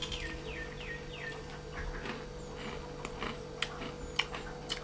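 Crunchy Navratan mixture namkeen being chewed, with sharp scattered crackles. Near the start a bird gives three quick falling chirps.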